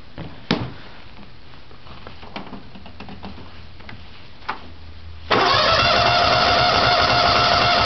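A few light clicks and knocks, then about five seconds in a small engine catches at once and runs loud and steady.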